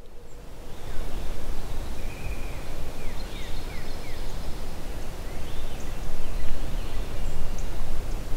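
Outdoor woodland ambience: a steady hiss with a low rumble, and a few faint, short, high bird chirps around the middle.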